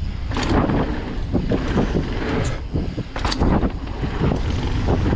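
Mountain bike ridden over a dirt trail: wind buffeting the microphone over the rattle of tyres and frame, with irregular knocks and clatters.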